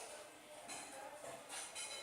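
Slime being squished by hand, with two soft, sticky crackling squelches about a second apart.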